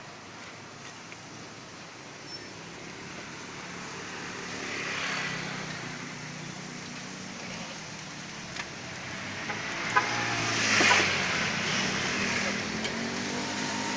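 Road traffic going past: a steady street hum with a vehicle passing about four seconds in and a louder one passing near ten seconds in.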